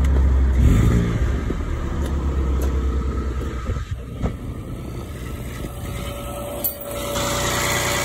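Citroen C1 engine idling just after starting, its exhaust running through a catalytic converter that has had its ceramic core removed; it runs smoothly ("nice and happy"). The sound grows louder about seven seconds in.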